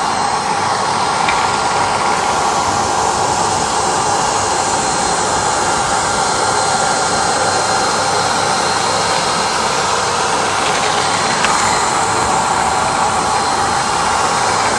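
Wet-dry floor-washing vacuum cleaner running continuously: a steady, even noise from its motor and rushing air.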